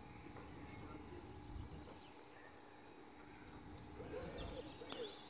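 Faint outdoor ambience with scattered high bird chirps. About four seconds in comes a short cluster of louder, lower wavering calls.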